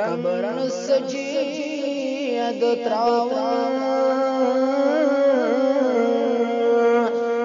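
A man singing an Islamic devotional song (nasheed) solo, in long wavering, ornamented lines over a steady held drone.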